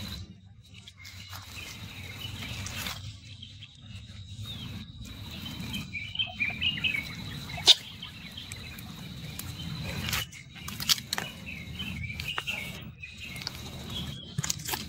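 Outdoor ambience of chirping calls over a steady high-pitched tone and a low rumble, with a few sharp clicks in the second half, one of them the loudest sound.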